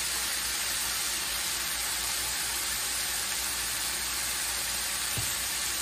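Beet greens sautéing in olive oil in a skillet: a steady, even sizzling hiss.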